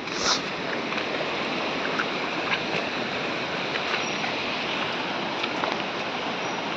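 A mountain stream rushing over boulders: a steady, even rushing sound with no change.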